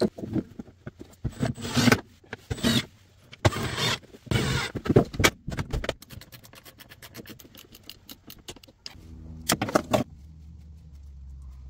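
Hands working with tools and wiring: irregular rustling and clattering for several seconds, then a fast run of small clicks. A steady low hum with a pitched tone starts near the end.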